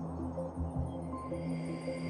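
Ambient background music made of sustained, slowly shifting tones.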